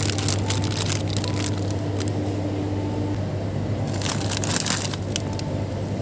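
Plastic frozen-food packets crinkling as they are handled, in short irregular crackles, over a steady low hum.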